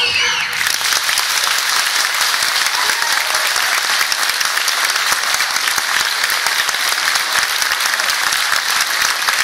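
Audience applauding, dense and steady, after the last sung or played notes die away about half a second in.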